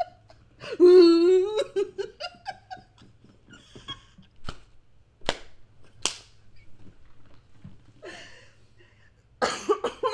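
A woman laughing hard: a loud, wavering laugh about a second in, then scattered giggles with a few sharp knocks, and another burst of laughter near the end.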